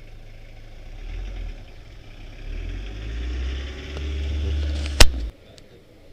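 Low rumble and rustle of an action camera being handled, swelling and fading, with one sharp knock on the camera about five seconds in; the sound then cuts off suddenly.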